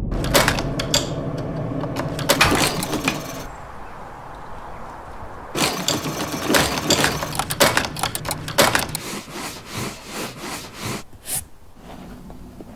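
Leatherworking sounds: a run of sharp taps and knocks, then from about six seconds in a sewing machine stitching through leather in quick clicks that thin out near the end.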